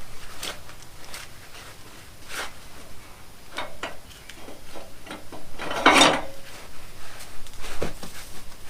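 Scattered knocks, clicks and rattles of hard objects being handled, with one louder clatter about six seconds in.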